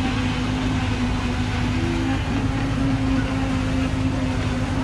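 Steady low mechanical drone with one constant tone, like a running motor, holding even throughout.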